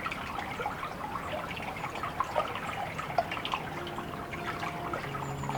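Water trickling and dripping, a steady patter of small splashes. Sustained music notes fade in near the end.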